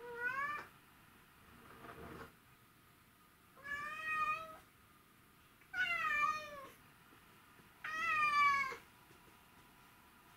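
Male white-and-ginger domestic shorthair cat meowing repeatedly: five drawn-out meows about two seconds apart, the second one faint, each rising in pitch and then dropping at the end. These are calling meows, which the uploader puts down to the cat missing his owner.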